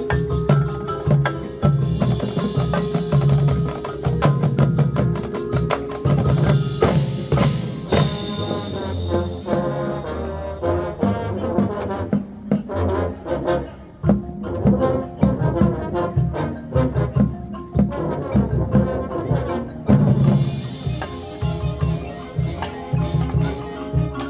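Marching band playing: brass chords over a steady drumline beat, with one loud crash that rings on about a third of the way in.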